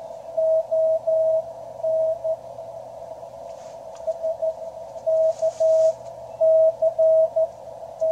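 Morse code received on a QRP Labs QCX CW transceiver: a single mid-pitched tone keyed on and off in dots and dashes over band hiss narrowed by the receiver's CW filter, with a short pause in the middle of the sending.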